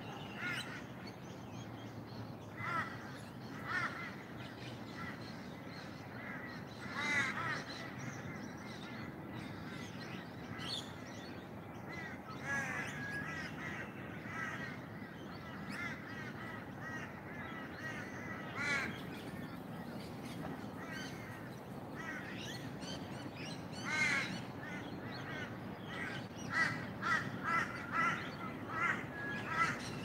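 Several wild birds calling, crows cawing among them, over a steady low background hiss; a quick run of calls comes near the end.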